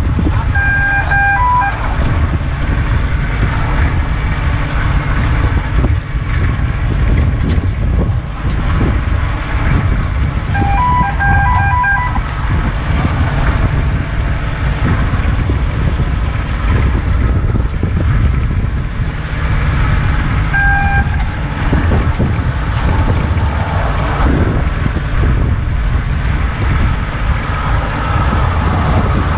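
Fishing boat's engine rumbling steadily under way, with wind buffeting the microphone. A short electronic beep sounds three times, about ten seconds apart.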